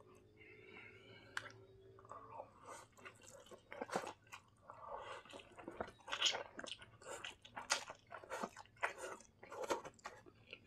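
A person slurping up and chewing Samyang spicy instant noodles: a run of short, irregular eating sounds that picks up about two seconds in.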